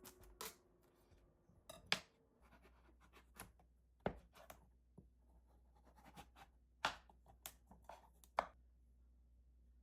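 Kitchen food-prep handling sounds: irregular sharp knocks and scrapes of utensils and containers, the loudest about two seconds in and twice near the end, over a faint steady hum that starts about two seconds in.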